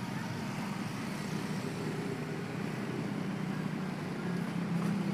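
Road traffic at a level crossing: small motorcycle engines running and passing, a steady low engine hum.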